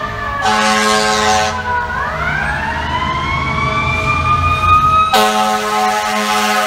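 Fire truck's air horn blasting twice, about a second long near the start and again from about five seconds in. Under it the siren winds down, then rises again.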